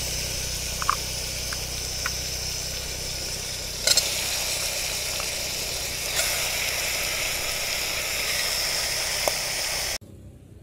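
Onions and tomatoes sizzling steadily in hot oil in an aluminium pressure cooker as raw chicken pieces are dropped in, with a few light knocks from the chicken and utensils. The sizzling stops suddenly near the end.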